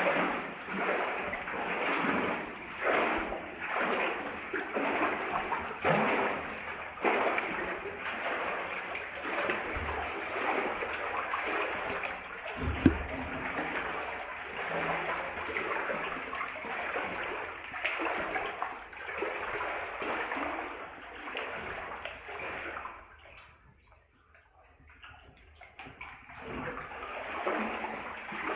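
Footsteps wading through water in a flooded mine adit, a splash and slosh with each stride about once a second. A single sharp knock comes about halfway, and the wading stops for a moment a few seconds before the end.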